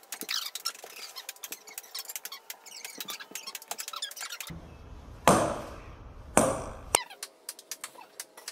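Ping pong balls bouncing on a hardwood floor: runs of light, sharp clicks that come quicker as each bounce gets lower. Two louder, ringing knocks come about five and six and a half seconds in.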